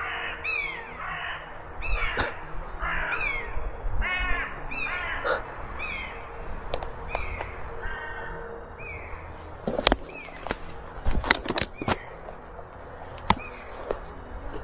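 Crows cawing repeatedly, many short calls in quick succession. Partway through, a quick cluster of sharp clicks or snaps.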